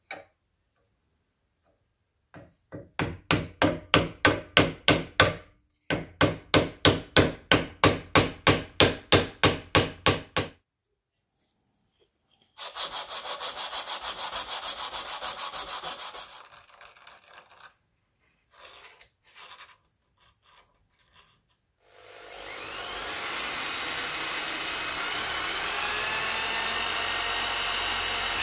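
Rhythmic back-and-forth strokes of a hand tool on wood, about three a second, in two runs. Then a wooden block is rubbed flat on sandpaper for a few seconds, giving a steady rasp. Near the end an electric drill runs up with a rising whine and bores into a wooden knife-handle scale.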